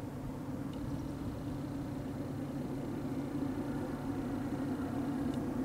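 Diesel freight locomotive approaching, its engine a steady low rumble that grows slightly louder.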